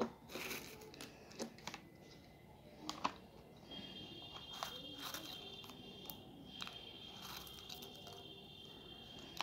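Bingo Tedhe Medhe fried snack sticks handled in a ceramic bowl: scattered light crunches and clicks as fingers pick through the crisp sticks. A steady high-pitched tone comes in about four seconds in and carries on.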